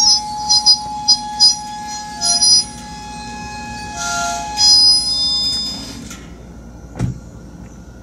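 Loaded coal train's hopper cars squealing as the train brakes to a stop: a steady squeal with short high chirps over it, fading out about six seconds in, followed by a single knock.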